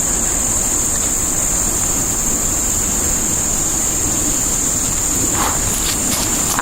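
Steady high-pitched insect chorus over a constant low rumble of wind on the microphone, with a couple of brief crackles near the end like steps in brush.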